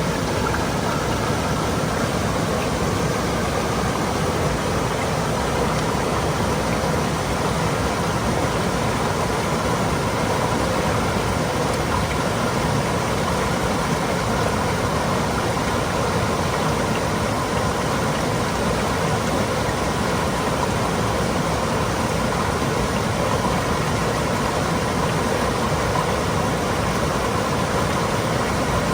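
Mountain stream flowing and babbling over rocks, a steady rushing of water with no breaks.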